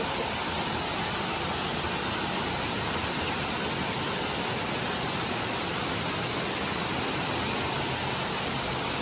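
Steady rushing of a cave waterfall, an even hiss of falling water at an unchanging level.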